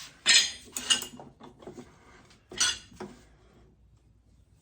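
Metal clanking of a steel pipe extension and wrench on a mower blade bolt while the bolt is being broken loose: a loud clank about a quarter second in, a couple more around a second, and another sharp clank about two and a half seconds in.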